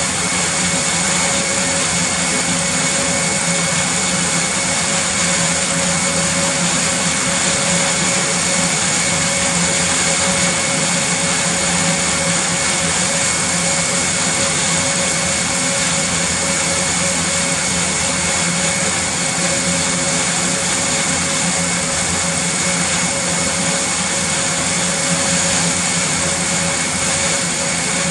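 Airbus A400M's TP400-D6 turboprop engines running on the ground with their eight-bladed propellers turning: a loud, steady rushing drone with a high turbine whine held at one pitch.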